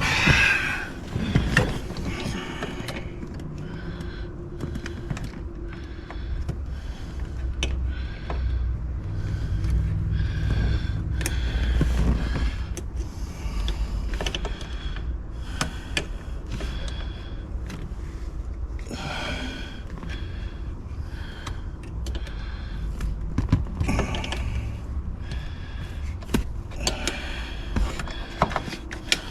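Irregular clicks, knocks and light rattles of hand work with tools on plastic interior trim in a car's center console, with rustling handling noise between them.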